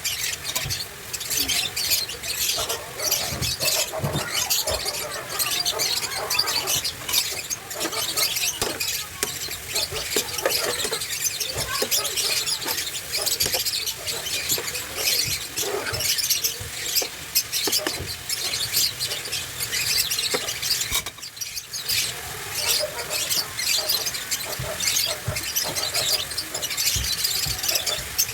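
Bitter melon sizzling and crackling in hot oil in a frying pan, a dense run of small sharp pops, with a brief lull about three-quarters of the way through.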